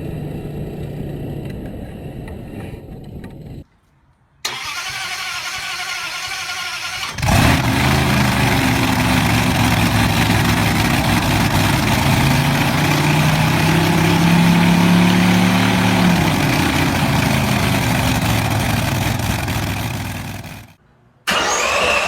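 A car engine starts suddenly about seven seconds in and runs loudly, its pitch rising slowly and then dropping back. Quieter engine sound runs before it, and the sound breaks off briefly twice.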